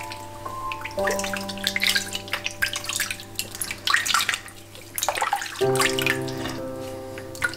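Water splashing and sloshing in a sink as a kitten is washed by hand, with the splashes mostly in the first two-thirds. Soft background music with held notes plays underneath.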